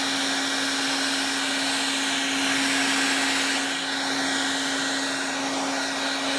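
Handheld hair dryer running steadily, a rush of air with a constant low hum under it.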